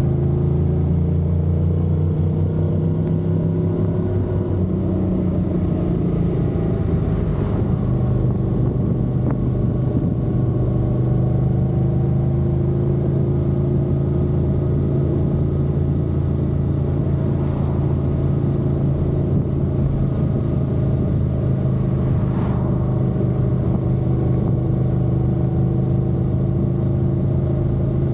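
Honda NC750X parallel-twin motorcycle engine running under way. Its note falls and shifts during the first several seconds, then holds steady.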